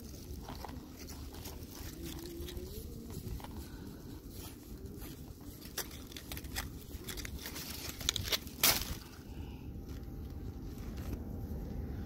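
Dry cucumber leaves and vines rustling and crackling as a hand searches through them, with a burst of sharp cracks a little past eight seconds in as a cucumber is pulled from the vine.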